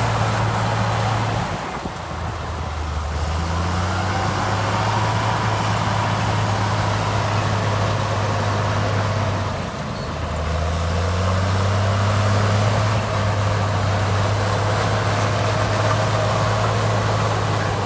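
Heavy diesel engine of earthmoving machinery running steadily. Its pitch dips twice, about a second and a half in and again about ten seconds in, and each time climbs back up.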